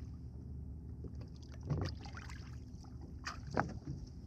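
Water splashing at the side of a small boat as a hand releases a fish into the sea, with two louder splashes, one near the middle and one near the end.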